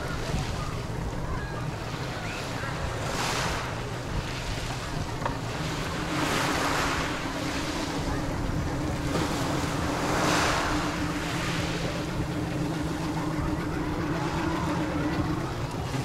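Small waves washing over a pebble shore, a swell of hiss every three to four seconds, with wind rumbling on the microphone. From about six seconds in, a motorboat's engine adds a steady low drone.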